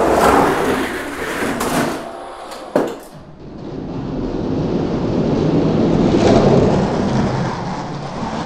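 Two Hot Wheels diecast monster trucks rolling down orange plastic drag track: a continuous rumbling rattle of wheels on the track, with one sharp clack a little under three seconds in.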